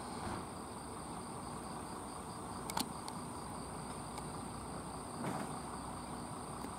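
A diesel railcar running in the distance, a low steady rumble, under insects chirping in an even high trill with a fainter pulsing chirp above it. A sharp click comes about three seconds in.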